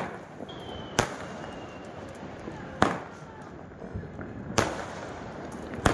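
Aerial fireworks bursting overhead: a sharp bang about every two seconds, with a crackling haze between them.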